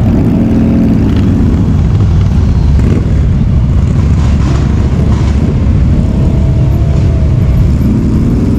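Many motorcycle engines running at once, a steady low rumble, with single bikes passing close whose pitch rises and falls near the start and again near the end.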